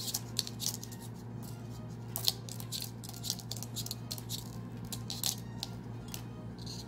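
Fine jewellery wire being wrapped by hand, 28-gauge wire coiled around 24-gauge wire: irregular light ticks and scrapes of the thin wire against itself and the fingernails, over a steady low hum.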